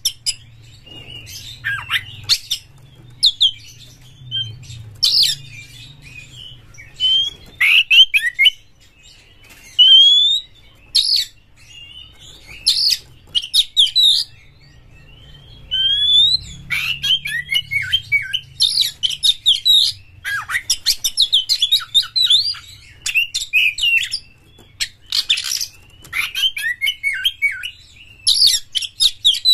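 Male Oriental magpie-robin (kacer) singing hard: loud bursts of rising whistles, harsh chattering notes and fast trills with short pauses between them, denser in the second half. It is the full song of an agitated, fierce (galak) bird.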